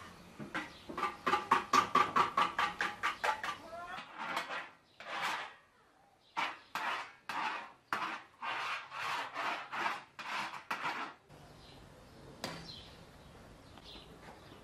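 A utensil scraping and rubbing across a large round metal baking tray as a creamy layer is spread over it: a quick run of strokes, then slower strokes about two a second.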